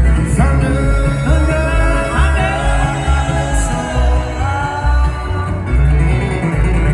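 Live bluegrass band playing, with a voice singing over picked guitar and a heavy bass.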